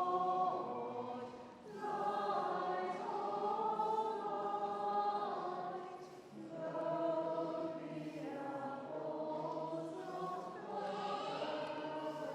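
Choir singing, the sung phrases broken by short pauses about a second and a half and six seconds in.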